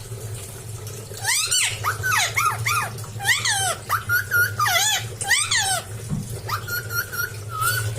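Indian ringneck parrot calling: a quick string of short, high squawks that each swoop up and down in pitch, with a few flat held notes among them. The calls start about a second in.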